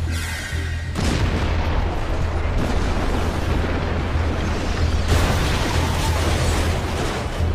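Anime sound effect of a huge explosion, the Colossal Titan's transformation blast: a dense, loud blast with a deep continuous rumble, swelling about a second in and again about five seconds in, with music underneath.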